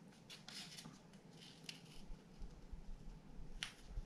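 A sheet of construction paper being folded and creased by hand: faint, short paper rustles and scrapes, with a sharper crisp one near the end.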